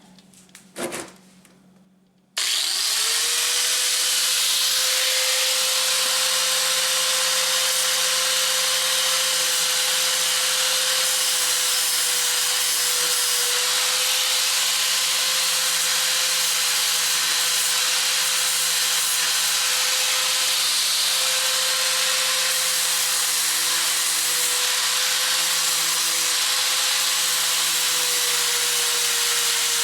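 Power tool fitted with a 120-grit sanding disc spinning up about two seconds in, after a few knocks, then running steadily as it grinds rust off a steel door hinge.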